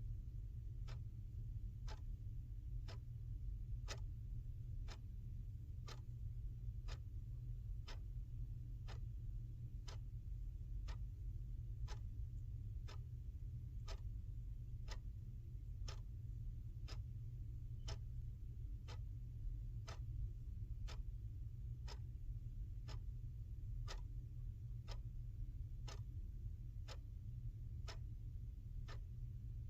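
A clock ticking steadily at about two ticks a second, each tick a short, sharp click, over a steady low hum.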